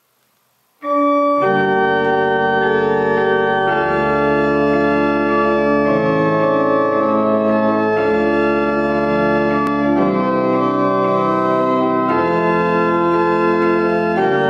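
Pipe organ playing a church song in slow, held chords over a pedal bass, starting about a second in.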